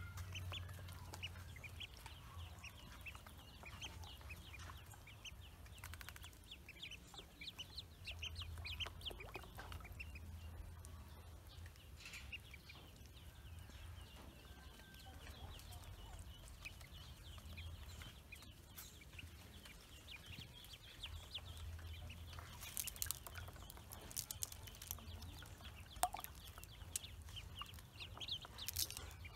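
Ducklings peeping over and over while swimming in a shallow basin of water, many short high calls overlapping, over a steady low hum.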